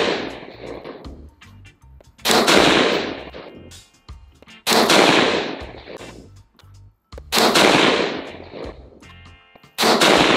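Stag Arms Retro AR-15 with a 20-inch heavy chrome-lined barrel firing .223 Remington rounds: four single, aimed shots about two and a half seconds apart, each followed by an echo that fades over about a second. The echo of a shot fired just before fades out at the start.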